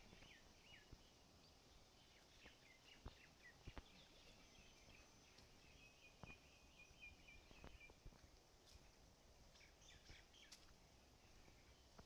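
Faint birdsong: scattered short chirps and a longer trill in the middle, with a few soft clicks.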